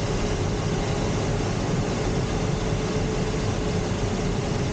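Steady rush of airflow around a glider's cockpit in flight, with a faint steady tone underneath.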